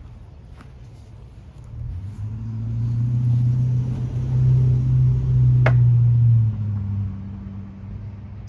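A motor vehicle's engine hum that swells over a few seconds and then fades, as a vehicle passing by would, with one sharp tap or click about two-thirds of the way through.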